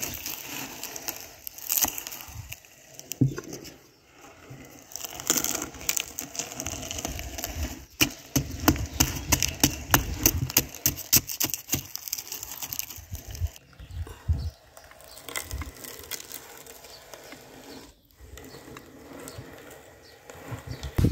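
Hand-cranked meat grinder crushing wafer ice cream cones: irregular crunching and crackling as the brittle cones break up in the auger.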